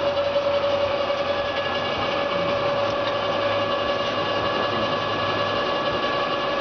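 Celtic 17-inch engine lathe running under power, its geared headstock and feed gearing giving a steady whine of fixed pitch, with the carriage power feed engaged. A lower hum drops away about five and a half seconds in.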